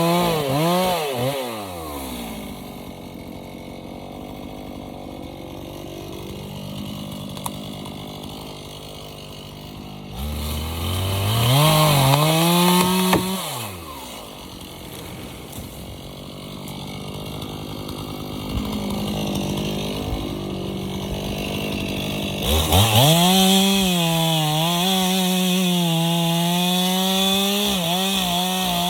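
Stihl MS 291 two-stroke chainsaw dropping from high revs to idle. It revs up for about three seconds, settles back to idle, then from about two-thirds of the way through runs at high revs with the pitch dipping and wavering as it cuts under load.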